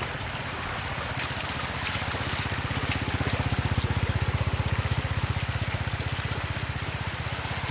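Water gushing and splashing from an irrigation pump's outlet, over the rapid, steady beat of the small engine driving the pump.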